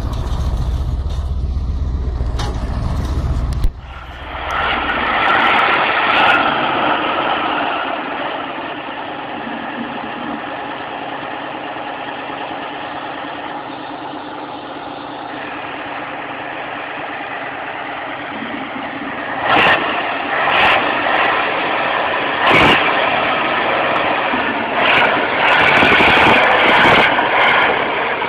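A heavy diesel tractor engine running hard as the tractor fords a river, its note steady and getting louder in the later part, with a few sharp knocks. For the first few seconds there is a deeper truck rumble, which cuts off abruptly.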